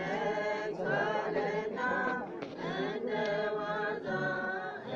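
Unaccompanied singing of a chant-like Amharic religious song, a run of held, wavering notes with short breaks between phrases.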